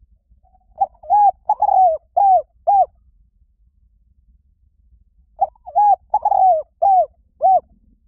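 Spotted dove cooing: two phrases of about five short, arched coos each, the second phrase starting a few seconds after the first ends.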